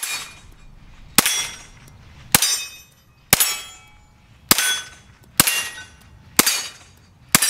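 9mm Glock 19 fired from a Meta Tactical Apex bullpup kit with a 16-inch carbine barrel, shooting at a steady pace of about one shot a second. There are eight shots, each with a short ringing tail.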